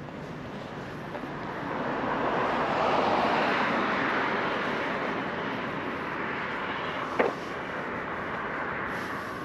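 A vehicle passing by: a rushing noise that swells over about two seconds and then fades slowly. A single sharp click about seven seconds in.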